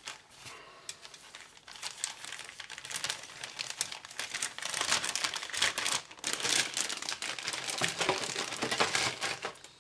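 Clear plastic bag holding a plastic model kit sprue crinkling and rustling as it is handled, with many quick crackles. It grows louder about two seconds in.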